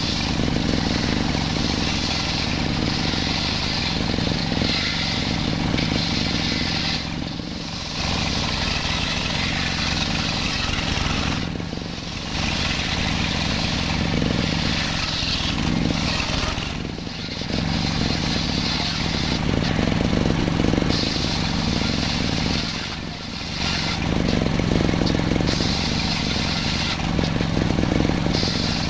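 Table circular saw running steadily while ripping a large salam log into slabs and planks: a constant low drive hum under a loud, high cutting hiss. The cutting noise eases briefly four times along the way.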